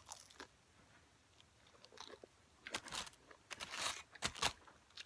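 Crisp crunching of a deep-fried egg roll's wrapper: a bite right at the start, then several more crunchy bursts as it is chewed over the next few seconds.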